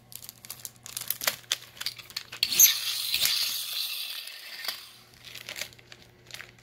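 Clear plastic packaging crinkling and crackling as small toy packs are handled, in scattered bursts, loudest in a longer stretch from about two and a half to four and a half seconds in.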